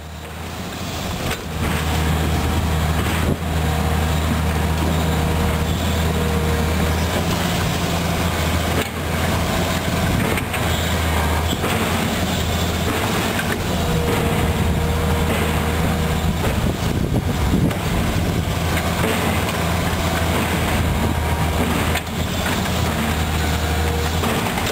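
Diesel engines of a Komatsu PC200 hydraulic excavator and a SANY rotary drilling rig running steadily, a deep continuous drone with a few brief knocks. The sound fades in over the first second or two.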